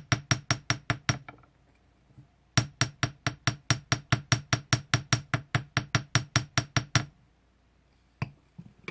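Light, rapid hammer taps on a wire head pin, flattening its end into a wider paddle: about six taps a second, each with a short metallic ring. The taps come in two runs with a pause of about a second between them, followed by a couple of single clicks near the end.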